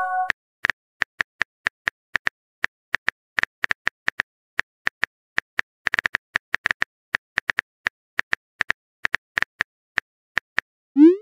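Phone keyboard typing sound effect: light, irregular clicks, several a second, as a text message is typed. A short rising pop, the message-sent sound, starts right at the end.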